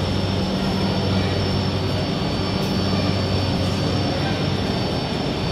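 Steady electrical hum of a Namo Bharat rapid rail train standing at the platform, a low hum with a thin high whine above it and the murmur of the station around it.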